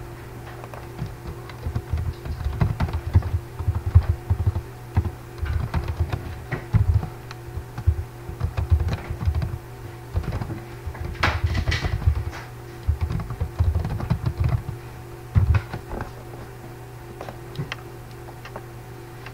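Computer keyboard being typed on in irregular runs of keystrokes, each key a click with a low thud. The typing stops a few seconds before the end.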